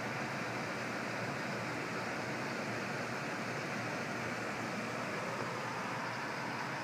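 Aquarium equipment running with a steady, even rushing hiss, like water flowing through a filter.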